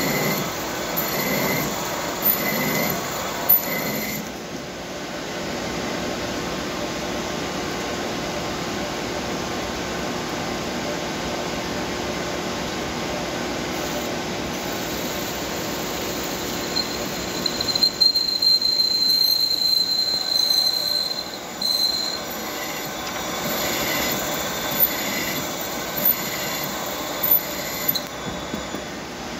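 CNC lathe cutting a groove in a spinning metal workpiece with a grooving tool on a G75 pecking cycle. Steady machine noise with short chirps about once a second near the start and again near the end, and a high-pitched squeal of the tool in the cut for a few seconds near the middle.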